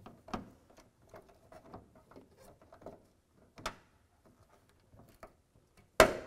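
Small clicks and taps of a plastic hood bug shield and a Phillips screwdriver being handled against the hood while the shield's clips are lined up with their holes. Sharper knocks come about a third of a second in and a little before four seconds, and a loud, sharp knock comes near the end.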